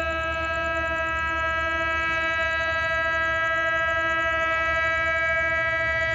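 Diesel passenger train approaching from a distance: a low engine rumble under a chord of steady high droning tones that hold unchanged throughout.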